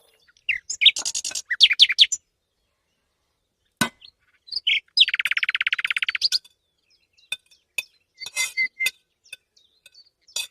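Small songbird chirping in short high notes, with one fast trill lasting just over a second about halfway through.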